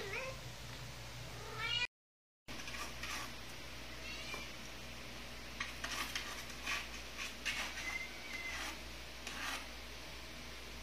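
Young kittens meowing in short, high calls that glide up and down, with a brief dropout to silence about two seconds in. In the second half a few light clicks and taps follow.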